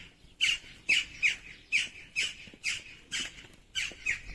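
A bird calling over and over, short sharp high squawks about twice a second in a steady rhythm.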